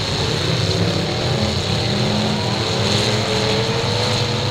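Several demolition derby cars' engines revving hard together, one engine's pitch climbing over the last couple of seconds as it pulls.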